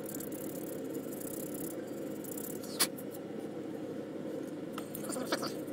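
Light scratching and a few sharp clicks as paint is scraped and worn off a plastic scale model, with one clear click about three seconds in and a small cluster near the end, over a steady background hum.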